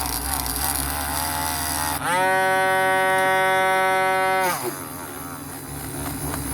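A powered wire brush scrubbing at small die-cast metal parts, with a rough, scratchy sound. About two seconds in, a louder, steady high motor whine takes over for about two and a half seconds, then sags in pitch and cuts off.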